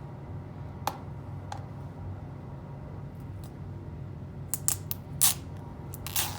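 A plastic DVD case and its packaging being handled: a couple of small clicks, then a cluster of louder scraping and crinkling sounds near the end.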